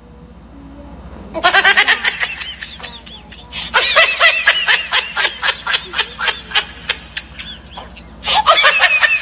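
Bouts of rapid, high-pitched vocal pulses, several a second: one short bout about a second and a half in, a longer run from about four to seven seconds, and another near the end.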